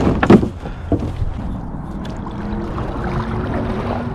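A canoe paddle knocking against the wooden hull once or twice near the start, then water lapping and dripping as the loaded canoe is paddled off from the bank. Faint background music comes in about halfway.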